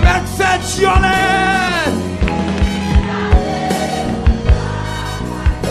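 Haitian Creole gospel song: a voice holds one long sung note, bending down at its end about two seconds in, over a band with a steady drum beat. The band then plays on without the voice.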